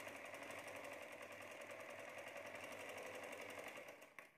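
Sewing machine running steadily with a rapid, even needle stroke while stitching a shoulder seam. It stops shortly before the end, followed by a brief click.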